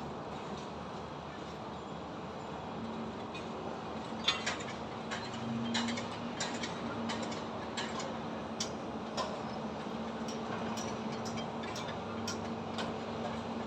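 Construction site ambience: a steady machine hum carrying a held low tone over a wash of noise, with irregular sharp knocks and clanks from about four seconds in.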